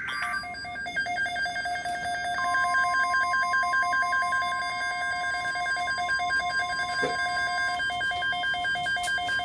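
Several electronic alert tones sounding at once: a fast pulsing beep alert, joined about two and a half seconds in by a weather radio's steady alert tone, with another steady higher tone coming in near the end. This is several devices alarming together for a severe thunderstorm watch.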